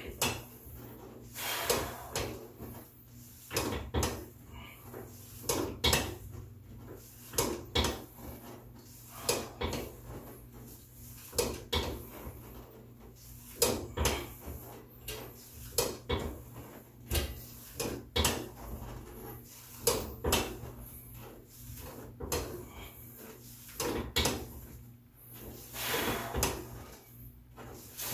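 Leg extension attachment of a home weight bench, loaded with weight plates, clunking with each repetition: a pair of knocks about every two seconds as the lever is raised and lowered.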